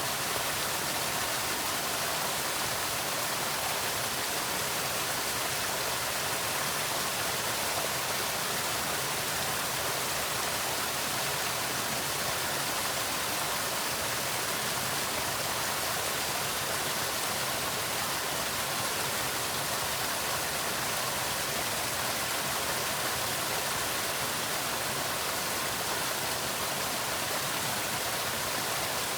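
Waterfall: water falling and splashing in a steady, even, hissing rush.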